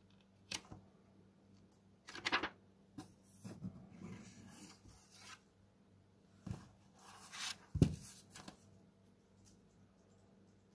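Pages and paper covers of an old paperback book rustling as it is handled, closed and turned over. There are several soft knocks, and one sharper thump about eight seconds in.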